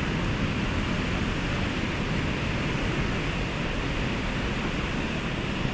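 Steady rushing of water flowing over the concrete weir steps of a dam spillway, an even noise with a heavy low rumble.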